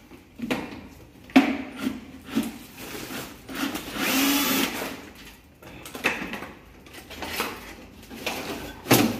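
A power drill runs briefly about four seconds in, amid scattered knocks and clatter from handling the metal housing of an inline exhaust duct fan. A sharp knock comes near the end.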